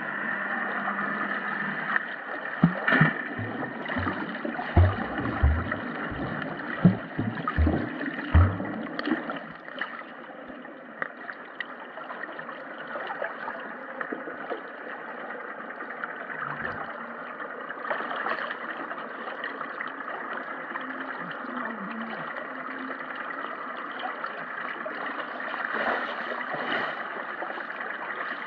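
Muffled sea water sloshing and hissing as heard by a submerged GoPro HERO7 Black, with a run of dull knocks in the first nine seconds or so.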